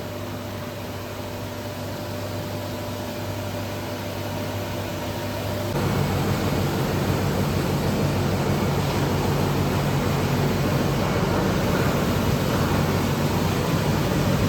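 Steady running noise of the carbonization furnace's lit gas burners and air blower during preheating, with a low steady hum. About six seconds in it grows louder and coarser and holds there.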